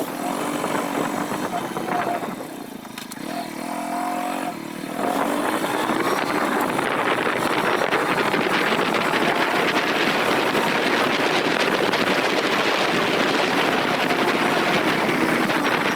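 A motor running under a loud, steady rush of wind noise, as when travelling at speed.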